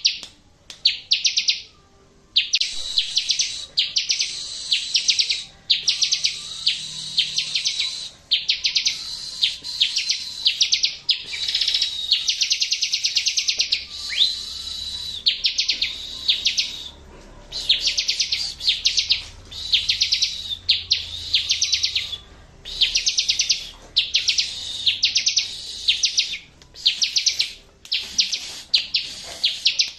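Bar-winged prinia (ciblek) song played as a tutoring recording: high-pitched phrases of rapid, chattering trills, each about a second long, repeated over and over with short gaps. It is the kind of recording played to provoke a caged ciblek that has gone quiet into singing back.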